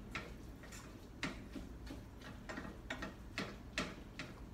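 Spatula knocking and scraping against a stainless steel frying pan while stirring and breaking up browning ground meat: irregular clicks, about two or three a second, a few of them sharper.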